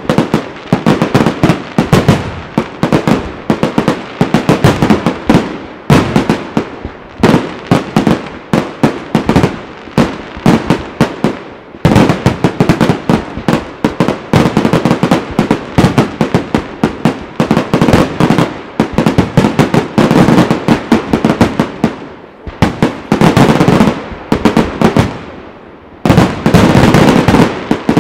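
Professional aerial firework shells bursting in a rapid barrage: a dense run of overlapping bangs with brief lulls, merging into a near-continuous roll of bangs near the end.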